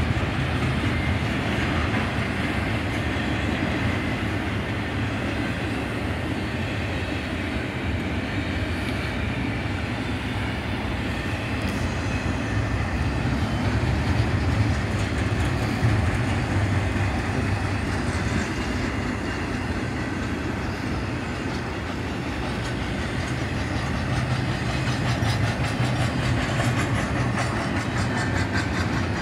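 Double-stack intermodal train's well cars rolling past: a steady noise of steel wheels on the rails, heaviest in the low end.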